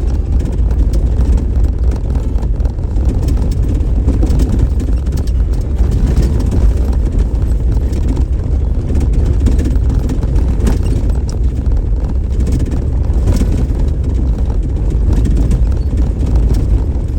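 Off-road vehicle driving on a graded dirt road: steady low rumble of tyres and engine, with scattered small rattles and ticks from the gravel.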